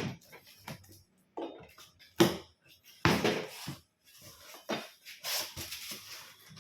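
Hard objects being handled, likely the gas stove and its parts coming out of the box: about six separate knocks and clatters, the sharpest about two seconds in, with short quiet gaps between them.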